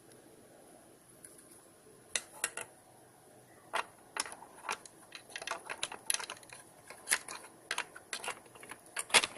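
Small plastic parts of a car's master power window switch being handled and fitted back together: irregular sharp clicks and taps, starting about two seconds in, the loudest near the end.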